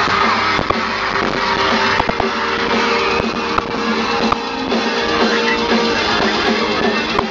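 Live hard rock band playing at full concert volume: distorted electric guitars over bass and a drum kit, heard from among the audience. The bass and drums come in right at the start.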